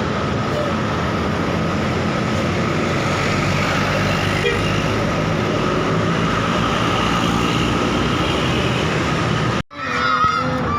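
Steady traffic noise of vehicles running past on a busy road. Near the end the sound cuts out for an instant, then a crowd's shouts and bending horn tones start.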